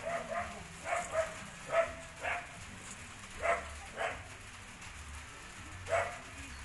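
A dog barking: short single barks repeated several times at irregular intervals, with a longer pause before a last bark near the end.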